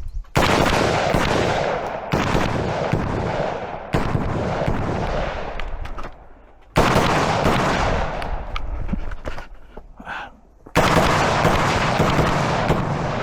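Semi-automatic M16A4-clone AR-15 rifle firing 5.56 mm rounds in rapid strings of shots, with brief lulls about six and ten seconds in.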